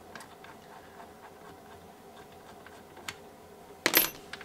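Faint small metallic clicks and ticks as the blade of a Milwaukee 6.5-inch cordless circular saw is taken off and its arbor bolt is unscrewed. Near the end comes one sharp metallic clatter as the loosened bolt and Allen key are set down on the bench.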